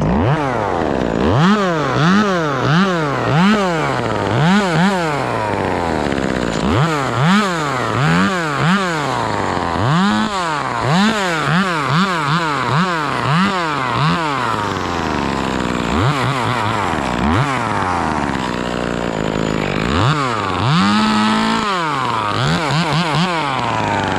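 Chainsaw engine revved in quick bursts of throttle, rising and dropping back again and again as it cuts, with one longer held rev about three-quarters of the way through.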